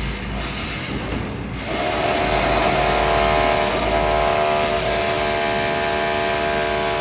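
Heavy construction machinery running. About two seconds in it gets louder, and a steady hum of many tones holds over the low rumble.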